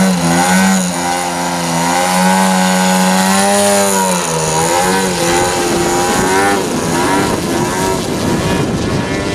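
Gas engine and propeller of a radio-controlled aerobatic airplane hovering in a prop hang, its note wavering and dipping as the throttle is worked. About halfway through the steady note breaks up into a rougher, noisier sound as the plane climbs away.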